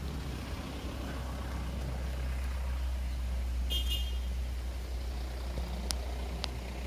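Vehicle engine idling with a steady low rumble. About halfway through comes a brief high-pitched beep, and near the end two sharp clicks.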